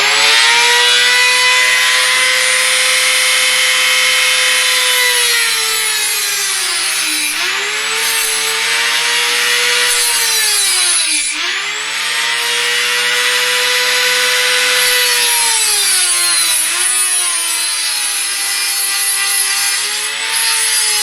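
Dremel rotary tool with an abrasive cutoff disc cutting lengthwise through a carbon-steel hacksaw blade: a loud, steady high motor whine under a harsh grinding hiss. The whine's pitch dips and recovers about three times, around a third, halfway and three-quarters of the way through, as the disc bears down on the steel in long, slow strokes.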